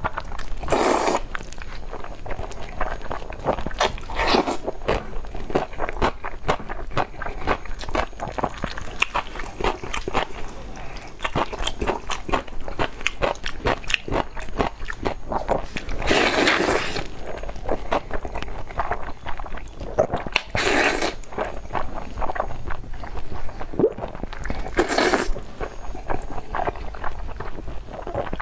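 A person eating black bean sauce noodles with chopsticks: about five loud slurps of noodles, each about a second long, with wet chewing and mouth clicks throughout.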